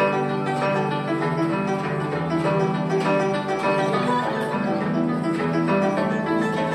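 Guzheng (Chinese zither) played solo: a steady stream of plucked notes over a held lower register, the strings ringing on between plucks.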